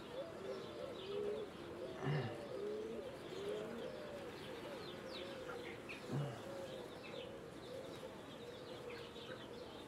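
Honey bees buzzing around an open hive, their hum wavering as individual bees fly close past. Faint bird chirps come through above it, with two soft thumps, about two and six seconds in.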